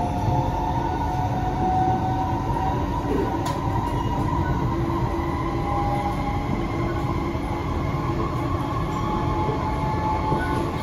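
Cabin sound of an SMRT C151C metro train slowing into a station: a steady rumble of wheels and running gear, with several whining motor tones that drift in pitch as it brakes.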